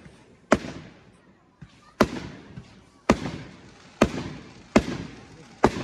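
Aerial fireworks bursting overhead: six sharp bangs about a second apart, each trailing off in echo.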